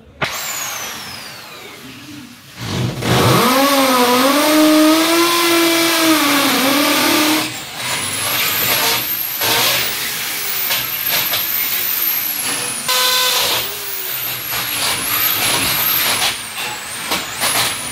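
Electric drill boring holes in a wall at the marked bracket points, running loud with short pauses, its motor whine wavering up and down in pitch as it bites.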